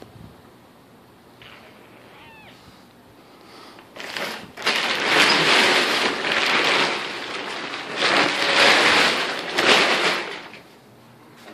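Blue plastic tarp rustling and crinkling as it is dragged off a bike, starting about four seconds in and coming in two loud surges before stopping near the end.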